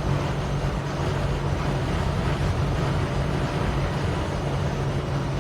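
Holden HK's engine running steadily under way, a constant low drone with road noise.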